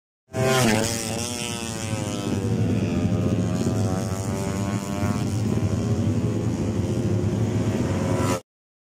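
Racing motorcycle engine at high revs going past, its pitch falling steeply as it passes. The engine note then rises slowly and holds, with a short dip about five seconds in, before cutting off abruptly.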